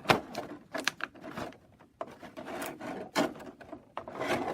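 Small wooden toy pieces being handled and fitted into place: a run of irregular knocks and clicks with rubbing and scraping between them, the sharpest knock just after the start.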